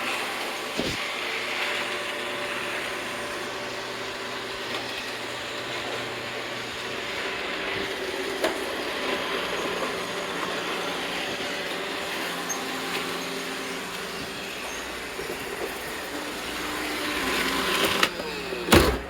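Robot vacuum cleaners running: a steady whir of suction motor and brushes with a few light bumps, and one loud knock near the end.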